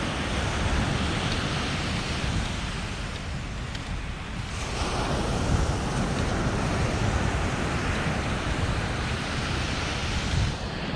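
Ocean surf washing on the beach, with wind buffeting the microphone; the surf noise swells again about halfway through.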